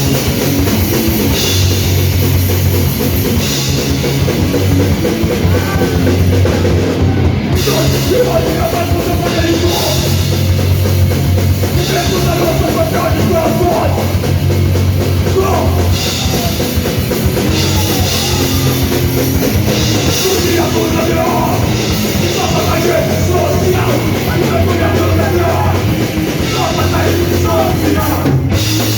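Crust punk band playing live: loud, distorted guitar and bass over fast drum-kit beats, running steadily.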